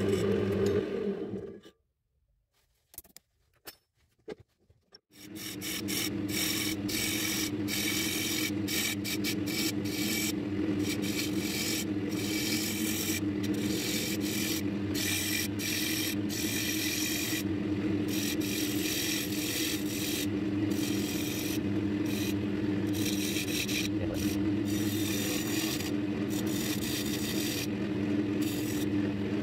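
Wood lathe running with a steady hum while a turning gouge cuts the face of a spinning mahogany disc, a scraping, shaving sound that comes and goes with each pass of the tool. It starts about five seconds in, after a short sound and a brief pause.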